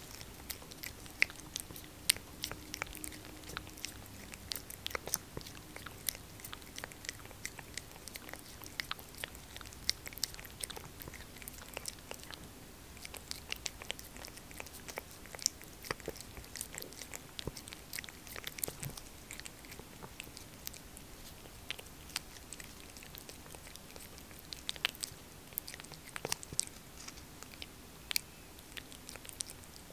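A tabby cat licking puree from a squeeze-tube cat treat: a quick, irregular run of small wet tongue clicks and smacks.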